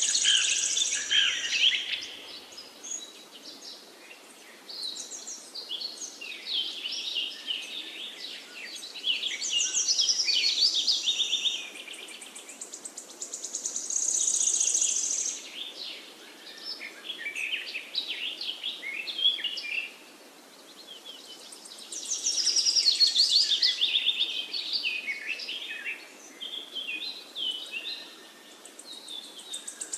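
Forest birds singing in overlapping phrases of quick chirping and trilling notes, with a louder, high, buzzy trill every several seconds, over a faint steady hiss of forest ambience.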